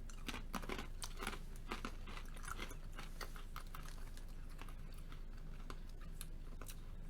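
Crunchy powder-coated pretzels being bitten and chewed, an irregular run of small crunches that are thickest in the first few seconds and then thin out.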